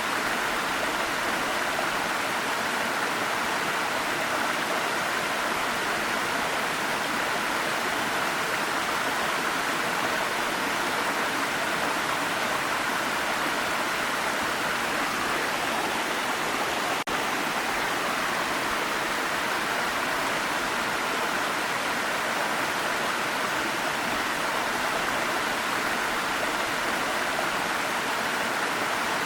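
Waterfall, water rushing and splashing steadily, with one brief tick a little past halfway.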